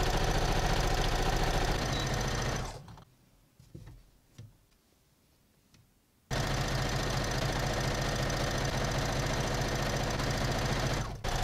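Electric domestic sewing machine stitching cotton fabric panels together at a steady speed. It stops about three seconds in, with a few faint clicks, then runs again about six seconds in until just before the end.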